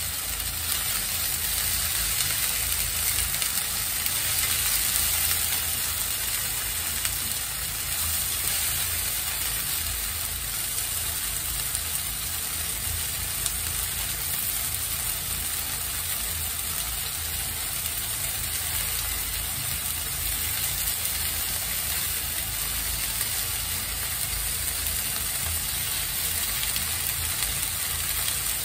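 Shrimp sizzling steadily in a frying pan.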